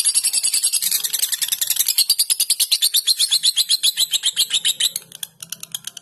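Young lutino lovebird's ngekek: a long, unbroken, high-pitched chattering trill of about a dozen notes a second. It falters briefly about five seconds in, then picks up again.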